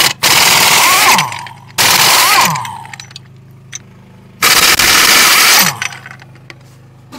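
AirCat pneumatic impact wrench hammering on the wheel nuts of a skidder wheel in several bursts of about a second each. A small engine runs steadily underneath.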